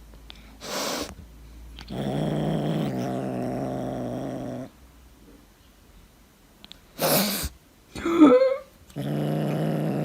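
A pet growling in long, low, drawn-out spells, broken by two short noisy bursts and a brief wavering cry about eight seconds in.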